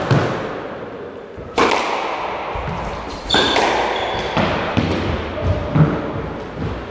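Squash ball being struck by rackets and smacking off the court walls in a rally, sharp hits every second or two that echo round the enclosed court. Short trainer squeaks on the wooden floor come between the hits.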